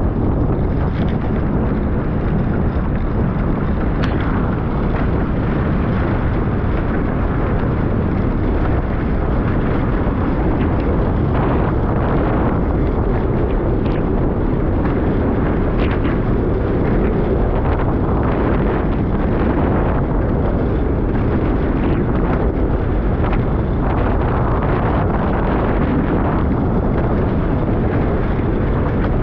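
Strong wind buffeting the microphone of a GoPro on a Hobie 16 sailing catamaran under way, mixed with the rush of water past the hulls. A loud, steady, heavy rumble with no letup.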